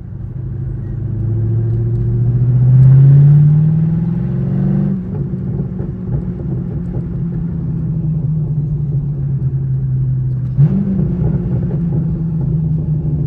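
C5 Corvette's 5.7-litre V8 engine under way. It rises in pitch as the car accelerates, drops suddenly about five seconds in, runs steadily, then steps up in pitch again near the end.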